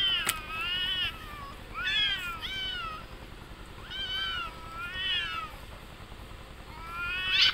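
Domestic cats yowling while mating: a series of drawn-out calls that waver up and down in pitch with short pauses between them, the loudest rising near the end. A single sharp click sounds early on.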